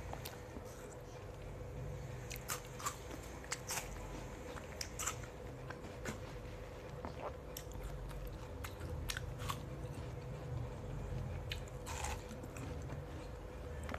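Close-miked biting and chewing of watermelon: scattered crisp, wet crunches and mouth clicks, with a fuller bite about twelve seconds in.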